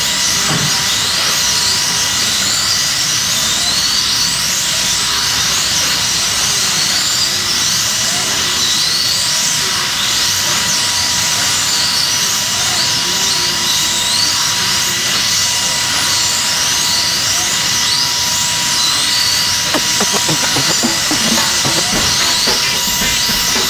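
Slot cars' small electric motors whining around the track, the pitch rising again and again as the cars accelerate out of the turns, over a steady high hiss. There is a quick clatter of clicks and knocks about twenty seconds in.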